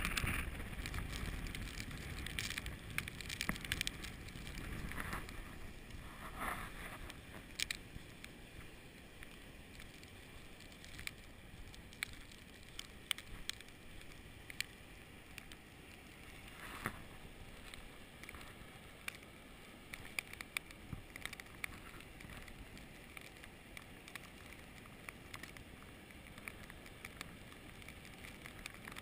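Snowstorm wind buffeting the microphone, a low rumble that eases after about five seconds into a faint steady hiss. Scattered irregular crackling ticks run through it.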